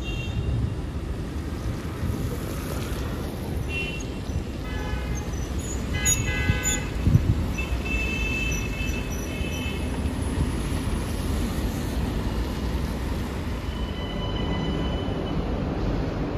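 Steady rumble of road traffic at a busy city intersection, with several short high-pitched toots around the middle.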